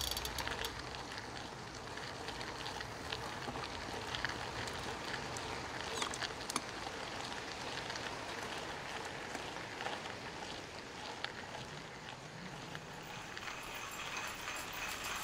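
Quiet outdoor woodland ambience: a steady even hiss with a few faint scattered ticks, the clearest about six seconds in.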